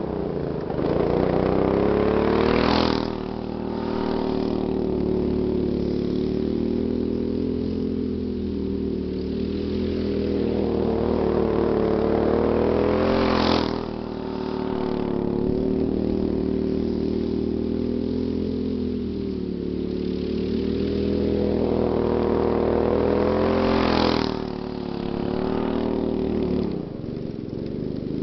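Go-kart engine running hard as the kart laps the track, passing close three times about ten seconds apart. The sound is loudest at each pass and fades as the kart goes away around the track.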